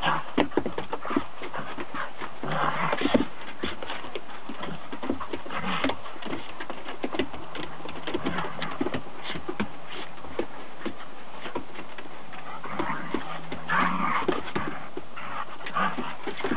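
Two dogs play-fighting on a wooden deck: their claws click and scrabble on the boards throughout, with short bursts of play growling about three seconds in and again around fourteen seconds.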